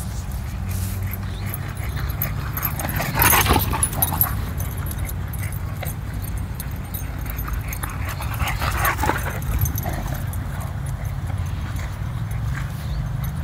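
Boxer dogs playing, giving two short bouts of dog vocalisation: one about three seconds in and another around eight to nine seconds. Under them runs a steady low rumble.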